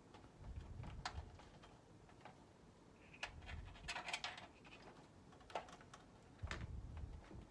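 Faint clicks and dull knocks of cables and their small plastic plugs being handled and pulled through the cable holes of a PC case, with a busy run of clicks about three to four seconds in.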